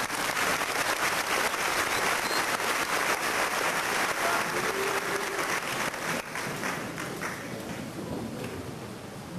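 Audience applauding, many hands clapping at once. It starts right away and thins out over the last few seconds.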